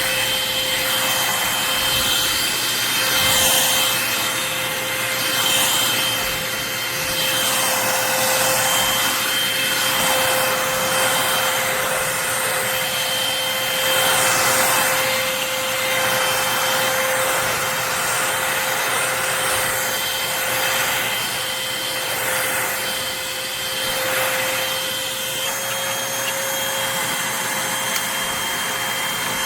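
Eureka NES212C corded stick vacuum cleaner running, a steady motor whine under a rushing suction noise that swells and fades every few seconds.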